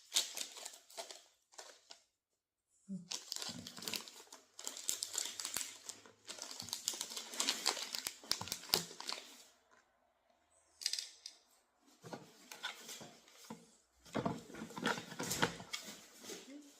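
Hands working on a model-dog mannequin's leg fitting: crinkly rustling and small clicks in several bursts, with short pauses about two seconds in and again around ten seconds in.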